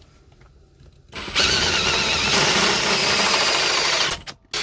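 Power drill on a long extension rod spinning up about a second in and drilling steadily through the plate that holds the steering column. It stops for a moment and starts again just before the end.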